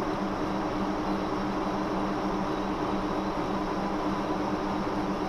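Monarch CY engine lathe running under power, its spindle and gearing giving a steady hum with two low tones over an even mechanical whir.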